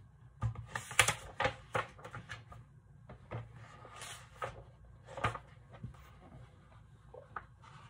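Handling and page turning of a large hardcover picture book: irregular light taps and clicks, with a soft paper rustle about four seconds in.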